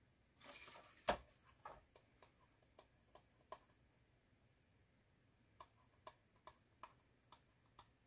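Olight Open Mini ballpoint pen writing on a cardboard box: faint short scratchy ticks, one per pen stroke, in two runs. About a second in there is a brief rustle and one sharp knock as the box is picked up and handled.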